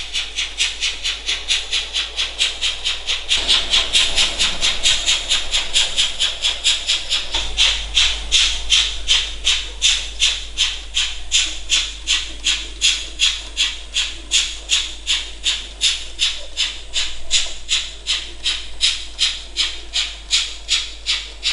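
Model class 042 steam locomotive's sound decoder giving a steady steam chuff, about three to four chuffs a second, as it hauls a goods train.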